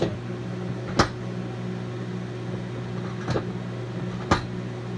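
Microwave oven running with a steady hum, just started on a two-minute cycle. Three sharp clicks sound over it, at about one, three and four seconds in.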